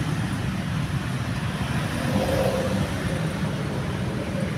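Steady low rumble of cars and road traffic, with no single event standing out.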